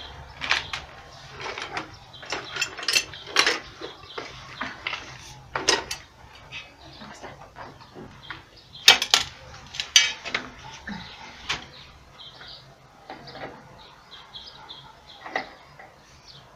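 Flat-blade screwdriver working the wire terminals of a submersible pump's wiring: irregular small metallic clicks and scrapes as screws are loosened and a wire is pulled free, with two sharper clicks about nine and ten seconds in.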